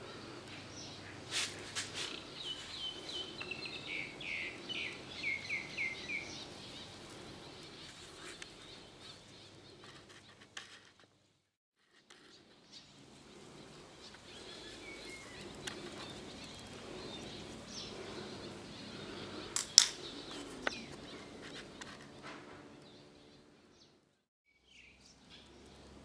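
Outdoor garden ambience with a small bird singing: a quick run of repeated descending chirps a few seconds in, and fainter calls later. A sharp click about twenty seconds in is the loudest sound, and the sound drops out briefly twice.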